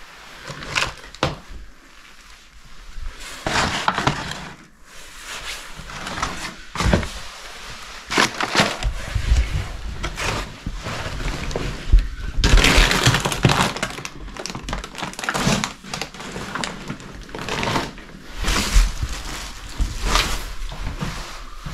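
Irregular crunching, scraping and knocking of footsteps and handling over debris and broken material, with several sharp knocks and a long loud stretch of crunching about halfway through.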